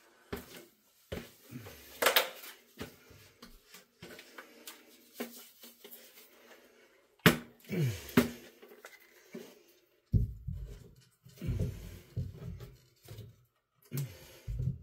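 Scattered clicks, knocks and scrapes of hand work on a drywall patch in a ceiling, with a few sharper knocks, then low thumps and bumps during the last few seconds.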